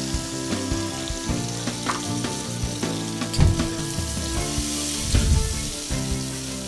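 Potatoes and eggplant in spiced oil sizzling in a hot pan, a steady hiss with a few low splashy thumps partway through.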